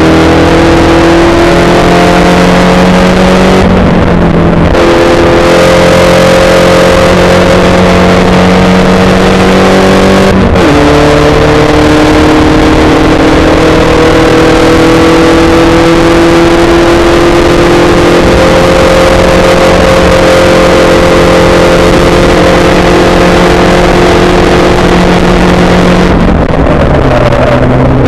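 Spec Racer Ford's four-cylinder engine at racing speed, loud and close from an open cockpit. Its pitch climbs slowly, breaks and drops briefly about four and again about ten and a half seconds in, as at gear changes, and falls near the end as the car lifts off.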